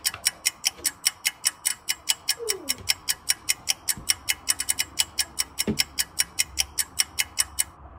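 Toy lie detector ticking rapidly and evenly, about six ticks a second, while it reads the answer; the ticking stops shortly before the verdict.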